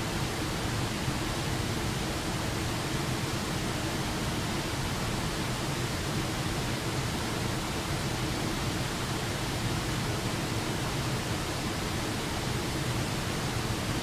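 Small waterfall pouring over a rock ledge into a rocky creek: a steady, unchanging rush of falling and churning water.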